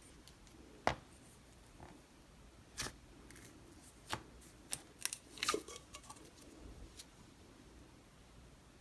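Slime being squished and poked by hand, giving a few sharp clicks and pops. The loudest comes about a second in, and there is a quick cluster around the middle.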